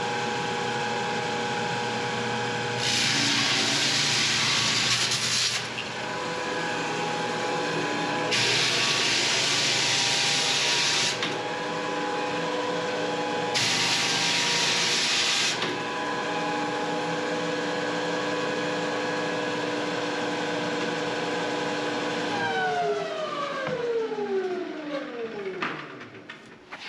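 8-inch EZ-8 drum floor sander running with a steady motor hum. Three times, for a few seconds each, a loud gritty sanding hiss joins in as the drum works the wooden floor. Near the end the motor is switched off and winds down, its pitch falling.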